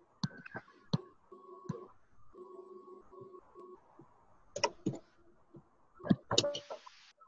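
Scattered sharp clicks and taps of computer keys and a mouse, picked up by an open microphone on a video call, over a faint hum that keeps breaking off. There is a short hiss near the end.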